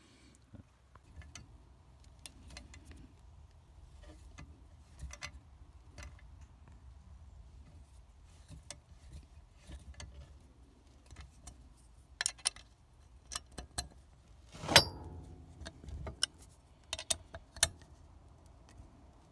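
Small metal clicks and clinks from a hex key (Allen wrench) turning a countersunk set screw into a steel mixer-wagon knife. The clicks are scattered and faint, come more often in the later part, and one sharper clink comes about fifteen seconds in. A faint low hum runs underneath.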